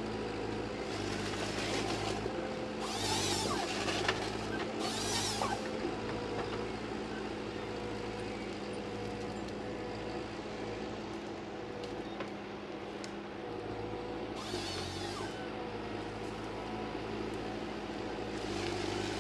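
A tree-harvesting machine's engine running steadily, with a few short bursts of hissing, rustling noise over it.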